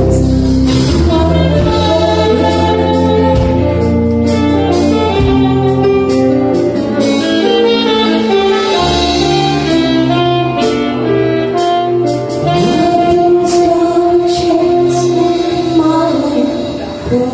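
Live band playing a song with a singer, loud and continuous.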